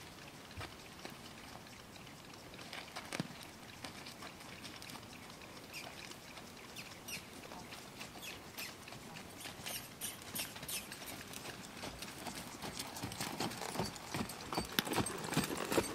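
A horse's hoofbeats on a sand arena, irregular soft thuds and clicks that grow denser and louder near the end as the horse comes closer.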